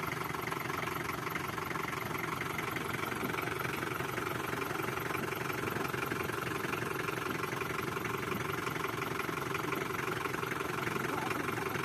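Off-road jeep engine idling steadily and evenly.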